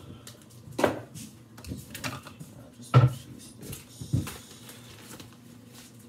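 Kitchen work clatter: four separate knocks and clunks of cookware or cupboards being handled, about a second apart, the loudest about three seconds in.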